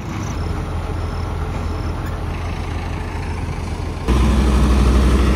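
Heavy diesel engines of a JCB backhoe loader and a combine harvester running steadily as the backhoe tows the harvester out of mud. About four seconds in the sound becomes abruptly louder and deeper.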